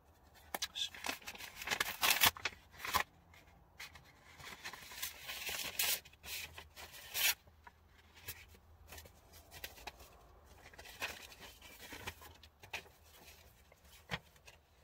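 A paper envelope being opened by hand: irregular bursts of paper tearing, rustling and scraping, loudest about two to three seconds in.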